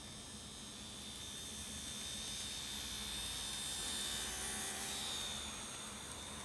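N-gauge model of a JR Kyushu 415 series electric train running past: its motor whine and wheel noise grow louder as it approaches, peak about four seconds in as it goes by, then fade, the whine dropping slightly in pitch as it moves away. A faint steady low hum lies underneath.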